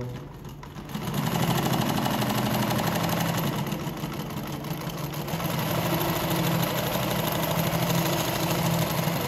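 Consew 146RB-1A-1 walking-foot industrial sewing machine starting up about a second in and running steadily, with a rapid, even clatter of needle strokes as it sews a zigzag stitch through double-layer vinyl.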